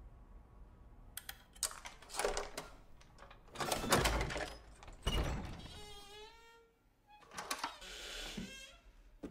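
An old wooden door's knob rattles and turns, then the door creaks open with a falling squeal lasting under a second, among scattered knocks and rustles.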